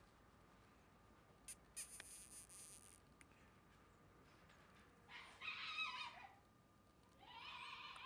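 A Shiba Inu puppy whining faintly: two high, thin whines, the first falling in pitch about five seconds in, the second near the end. Earlier, a click and a short rustle about two seconds in.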